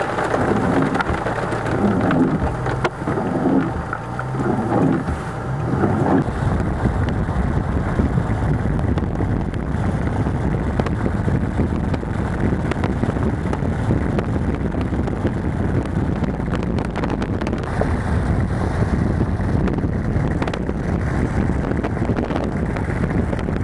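Wind buffeting the microphone in a steady, loud rumble during a thunderstorm, with a wavering hum over the first six seconds or so.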